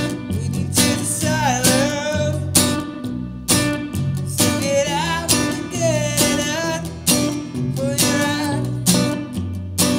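A band playing a song: guitars, bass and drums on a steady beat, with a singing voice carrying a melody over them.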